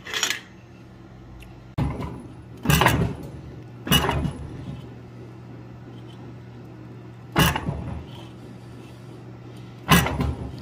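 About six separate hammer blows on hot steel, spaced irregularly with a long pause in the middle, each a sharp strike with a brief metallic ring. A steady low hum runs underneath from about two seconds in.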